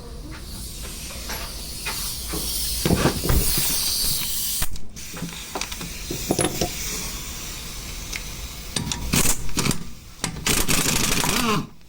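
Compressed air hissing from an air tool, then several short bursts of mechanical rattling near the end as a part on the engine is worked loose.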